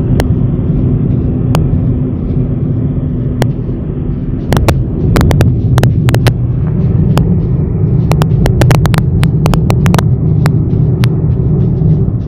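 Steady low rumble of a car driving along a highway, heard from inside the cabin, with scattered sharp clicks, most of them in the second half.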